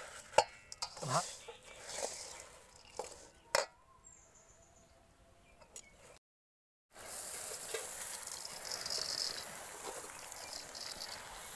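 A steel spoon clinking and scraping against a steel bowl as puffed rice coated in jaggery syrup is stirred. After a short gap comes a steady rustling hiss of puffed rice pouring from a plastic bag into the bowl.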